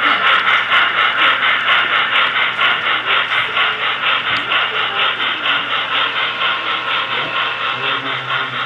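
Steam-locomotive chuffing from the sound unit of a model New York Central 4-8-4 Niagara steam locomotive: a steady quick beat of about five hissing chuffs a second, slowly fading as the train moves on.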